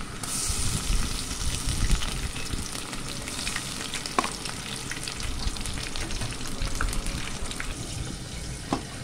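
Sliced onions, whole spices and ginger-garlic paste sizzling in hot oil in an aluminium pot. The sizzle gets sharply louder just after the start, and a few light metal clinks come through, one near the end.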